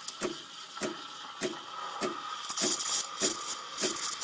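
Espresso machine steam wand frothing milk in a jug: a steady hiss with a regular spitting pulse a little under twice a second as the wand draws air into the milk. The milk is close to done.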